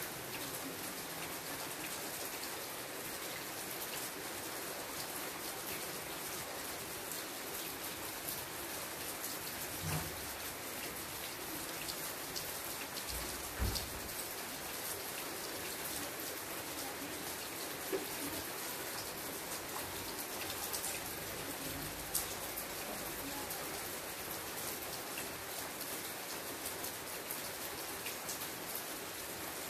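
Steady rain: a dense, even hiss of falling drops with fine ticks through it, and a few louder single thuds, the strongest about halfway through.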